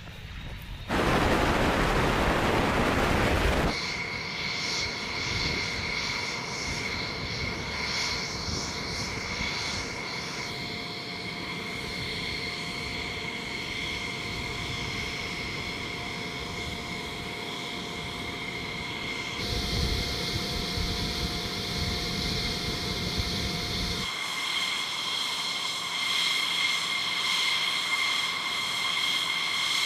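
Fighter jet taking off with a loud roar for a few seconds that cuts off abruptly. Then comes the steady high-pitched whine of jet engines running on the flight line, over a low rumble, changing in character at several edits.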